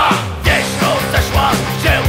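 Oi! punk rock recording: a full band of electric guitars, bass and drums playing a steady, driving beat.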